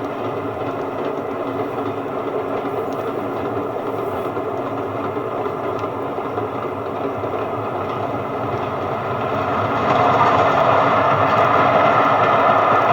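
A railway train running on the track, a steady heavy noise that gets louder about ten seconds in as it comes closer.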